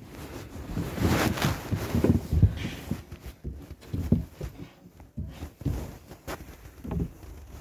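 Phone handling noise: clothing and hair rustling against the microphone, with irregular muffled bumps and thuds as the phone is moved about. The rustling is thickest about a second in, then thins to scattered knocks.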